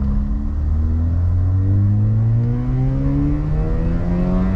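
Mazda RX-8's two-rotor Wankel rotary engine, fitted with a midpipe and the stock muffler, pulling hard through second gear, heard from inside the cabin. Its pitch climbs steadily as the revs rise on a full-throttle dyno run.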